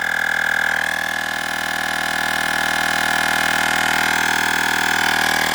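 Olgeo M7 battery-powered portable air compressor running steadily as it pumps up a flat tire, here past 15 psi: a constant buzzing hum with a fast, even pulsing from the pump.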